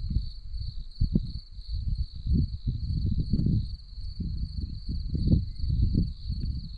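Wind buffeting the microphone in irregular gusts, with a steady high chorus of crickets trilling underneath.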